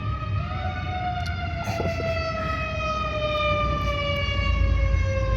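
A siren wailing, its pitch rising near the start and then sliding slowly down, over a steady low rumble.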